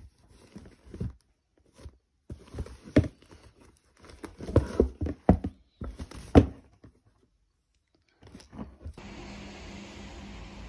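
Tissue paper rustling and a cardboard gift box being handled, with several sharp knocks and taps. About nine seconds in it gives way to a steady background hiss with a low hum.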